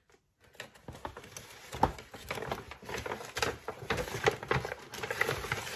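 Brown kraft-paper gift bag rustling and crinkling as a hand rummages inside it, with many small irregular taps and clicks, starting about half a second in.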